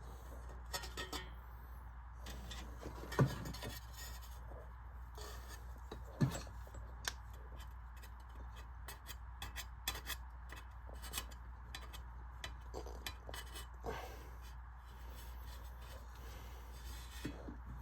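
Scattered clicks, taps and scraping of a hand tool working at a fan blade's hub to free it from a stuck motor shaft, with two louder knocks about 3 and 6 seconds in, over a low steady hum.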